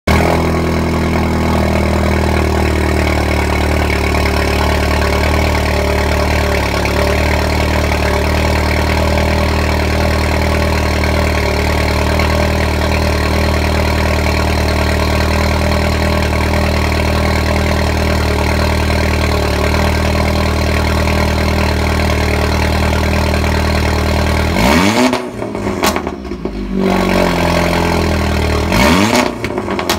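Audi TT Mk2 running through a Cende aftermarket exhaust on a cold start, at a loud, steady idle. About 25 seconds in, the engine is revved twice, a few seconds apart, each time rising in pitch and dropping back.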